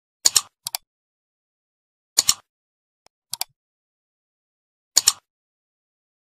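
Mouse-click sound effects of a like-and-subscribe animation: five short, sharp clicks, most of them doubled, spaced a second or more apart with silence between.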